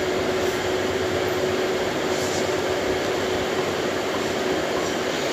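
Steady background hiss with a constant low hum that fades out near the end.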